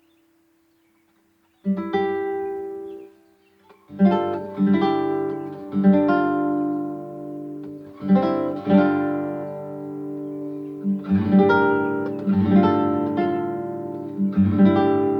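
Acoustic guitar music. After a short silence a chord is plucked, then after a brief pause a steady run of plucked and strummed chords follows.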